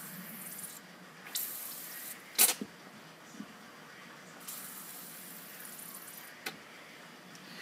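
Compressed air hissing from an air blow gun into a Z32 300ZX front brake caliper in several short blasts, to force the stuck pistons out of their bores. A sharp pop about two and a half seconds in, with a smaller one near the end.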